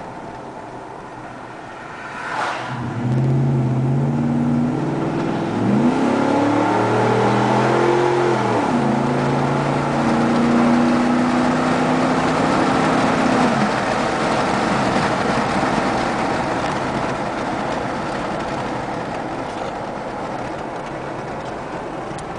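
2010 Ford F-150 V8 with a Flowmaster 40 Series exhaust, heard from inside the cab while accelerating: the exhaust note climbs in pitch, dropping back twice at gear shifts, then gives way to steady road noise that slowly fades.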